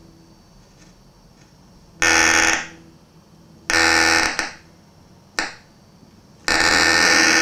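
Breadboarded Z.Vex Fuzz Factory clone fuzz circuit putting out bursts of noisy, distorted fuzz: three short bursts that start and cut off abruptly, the last very brief, then a sustained burst from a little before the end.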